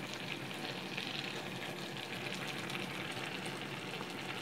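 Chicken and onion-tomato masala simmering in a pot, a steady bubbling sizzle with fine crackle.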